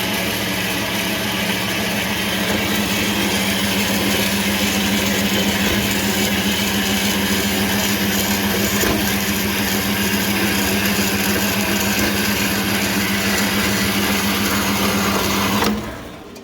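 Bandsaw cutting a piece of metal stock: a steady hum under an even hiss. It stops suddenly less than a second before the end.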